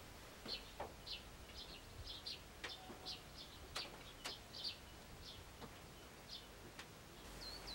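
Faint songbird chirping outdoors: short, high chirps repeated about twice a second, with a few faint clicks among them and a swooping call near the end.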